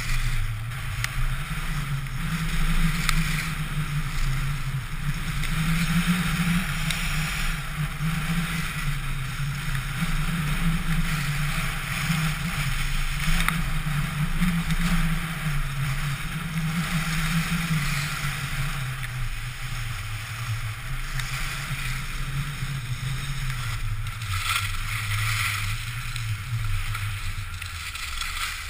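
Skis sliding and carving on packed snow, with wind rushing past a GoPro Hero in its housing on a ski pole. There is a steady low rumble with a hiss above it.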